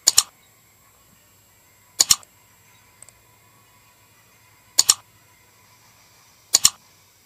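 Four computer-mouse clicks, each a quick double click, about two seconds apart. They are the sound effects of an animated like-and-subscribe button being clicked.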